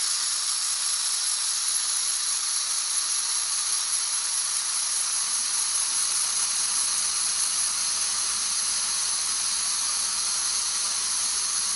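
Air hissing steadily out of an overinflated car tire's valve stem, let out by pressing an air chuck onto it. The tire is being let down so its TPMS sensor registers the pressure drop during a relearn.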